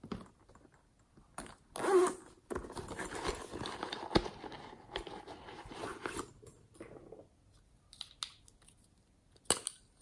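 Hard plastic being handled: a pink plastic pig-shaped case is lifted, rattled and opened with rustling and scraping, with sharp plastic clicks, the last near the end as a lipstick is uncapped.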